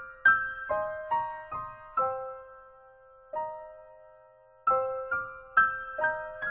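Background music: a slow melody of single high notes, each struck and dying away, with a pause of about two seconds in the middle broken by one lone note.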